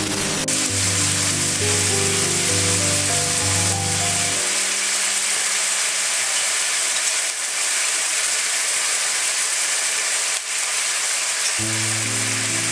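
Diced chicken breast sizzling steadily in hot oil in a wok. Background music plays over the first few seconds and comes back near the end.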